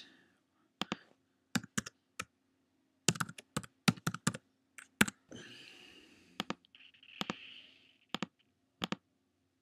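Computer keyboard keystrokes typing a password in short irregular runs, with a few mouse clicks.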